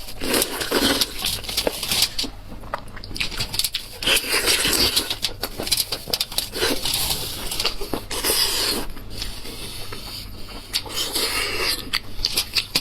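Close-miked eating sounds from spiced sheep's head meat: irregular wet chewing, smacking and sucking, with many small clicks.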